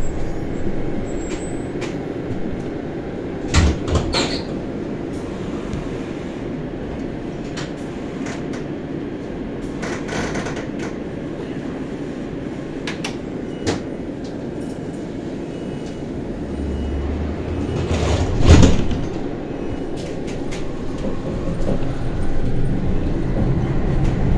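Interior running noise of a 2003 Iveco tram in motion: a steady rumble with occasional sharp knocks and clunks, the loudest about three-quarters of the way through.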